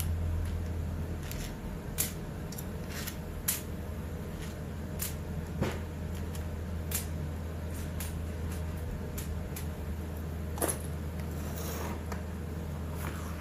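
Scattered sharp metal clicks and taps of hand tools and small parts being handled during a chainsaw teardown, about nine over the stretch, over a steady low hum.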